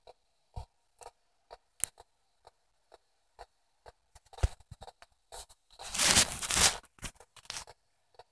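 P-SB7 spirit box sweeping through radio stations: a steady run of short clicks, about two a second, as it jumps from station to station. About six seconds in, a louder rush of radio noise lasts about a second.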